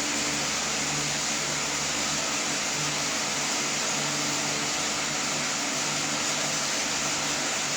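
A steady mechanical whir with a low hum underneath that swells and fades slightly.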